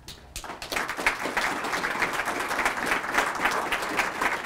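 Audience applauding: many hands clapping, rising from about half a second in and then holding steady.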